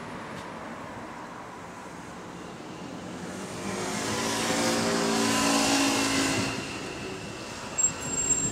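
Double-decker bus approaching along a busy road and pulling in to the stop, its engine noise swelling to a peak about five to six seconds in and then easing, with a brief high squeal near the end as it comes to a halt.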